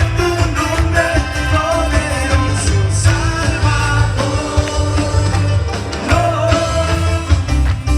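Live band playing an upbeat song, with a steady drumbeat, heavy bass and a melodic lead line.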